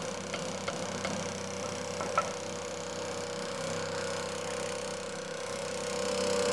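Steady electric motor hum of a wood lathe, growing a little louder near the end, with a few light clicks and taps as a square blank is set between the lathe centres and the tailstock is tightened.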